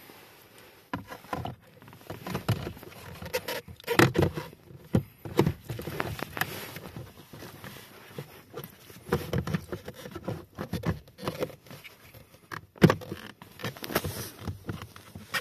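Irregular knocks, clicks and rustling as a car's plastic blower motor and fan housing are handled and fitted under the dashboard.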